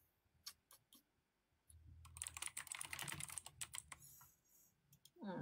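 Typing on a computer keyboard: a few separate key clicks, then a quick run of clicks lasting about two seconds, then a few more scattered clicks, all faint.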